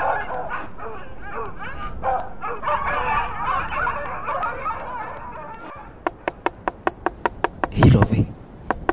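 Crickets trilling steadily, with indistinct voices in the background through the first half. Near the end comes a quick run of clicks, about seven a second, then a short louder noisy burst.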